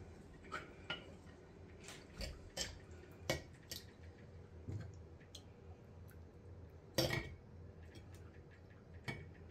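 Cutlery clinking against plates during a meal: scattered light clinks and taps, the loudest about seven seconds in.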